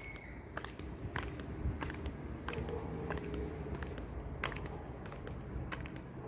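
High-heeled stiletto mules clicking on block paving as a woman walks, about two sharp heel strikes a second, over a low background rumble.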